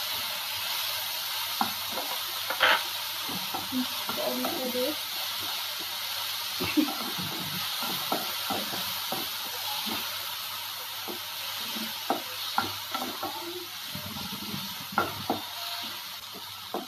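Onions and ginger-garlic paste sizzling in hot oil in a frying pan, with a steady hiss. A wooden spatula stirs through it, knocking and scraping against the pan in irregular short clicks.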